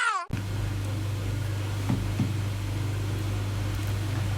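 A steady low hum with an even hiss, cutting in abruptly just after the start, with two faint clicks about two seconds in.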